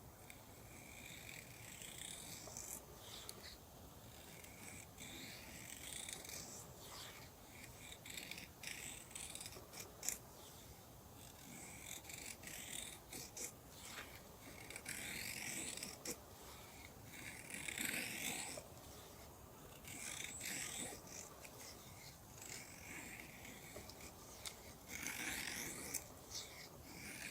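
A knife blade shaving wood into a feather stick: repeated scraping strokes a few seconds apart, each under a second to about a second and a half long.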